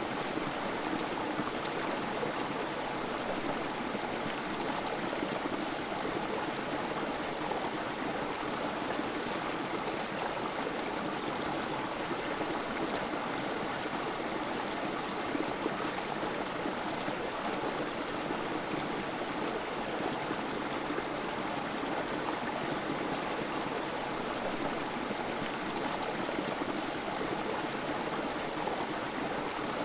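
Creek water trickling over rocks in a small cascade into a pool, a steady, unbroken sound of running water.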